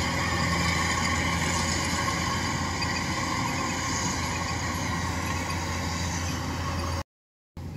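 Kubota DC-105X crawler combine harvester running steadily under load as it cuts rice: a constant engine drone with the hiss and whirr of the cutting and threshing machinery. The sound cuts off abruptly about seven seconds in.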